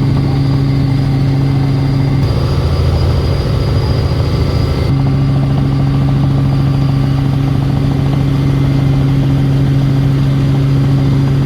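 Helicopter running with a loud, steady engine drone; the sound roughens briefly between about two and five seconds in.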